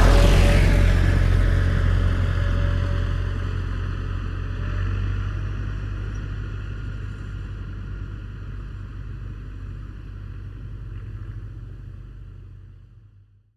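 Tractor engine running with a deep, steady low note, loudest at the start and fading away over about twelve seconds until it stops.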